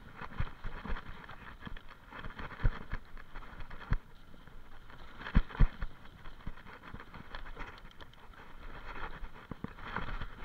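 Mountain bike ridden fast over a bumpy dirt forest trail: steady tyre noise with irregular knocks and rattles from the bike over roots and bumps, a couple of heavier thumps about halfway through.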